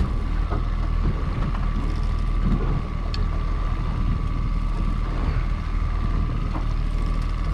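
Boat motor running steadily with a low rumble and a constant high whine, with wind on the microphone.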